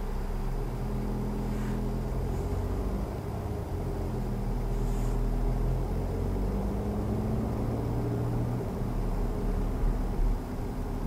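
Car engine and road noise heard from inside the cabin while driving slowly through town: a steady low hum whose engine tones shift a little with speed, with two short knocks near the end.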